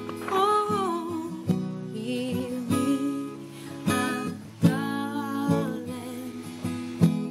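Acoustic guitar strummed and picked in a slow song accompaniment, with a short wordless sung phrase near the start.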